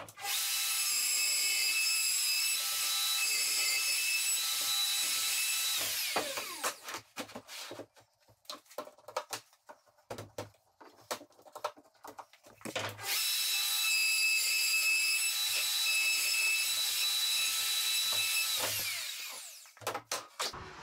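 Plunge router running at full speed, routing bolt-hole recesses in a kitchen worktop through a jig. There are two runs of a steady high whine, each about six seconds long, and each winds down with a falling pitch. Between and after the runs come scattered knocks and clicks from the router and jig being handled.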